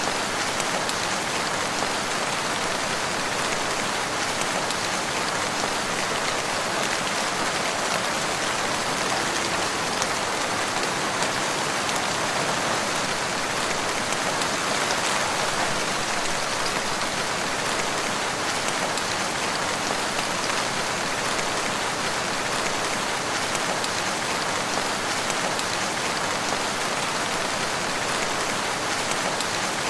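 Steady rain falling, an even hiss of drops that holds at the same level without pause.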